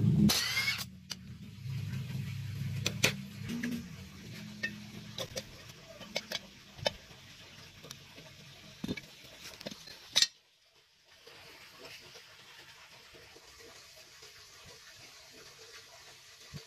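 Metal parts and tools clinking and tapping now and then, with a low hum in the first few seconds that dies away. The sound cuts out briefly a little after ten seconds, then the scattered clinks go on faintly over a light hiss.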